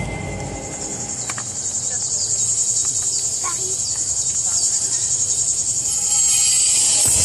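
Crickets chirring: a steady high trill that pulses rapidly, growing louder about six seconds in.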